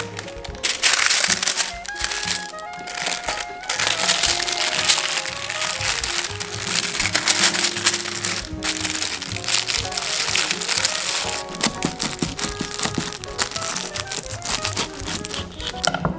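Baking paper crinkling and rustling in irregular crackles as it is folded and pressed around a rolled tortilla wrap, over background music with a melody.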